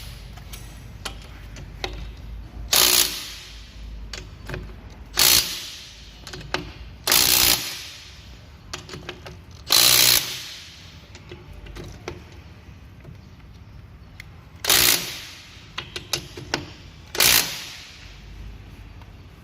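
Makita DTW300 18 V cordless impact wrench with a 19 mm socket, hammering in six short bursts to loosen the wheel bolts, run in assist mode with auto stop. Small clicks and knocks come between the bursts.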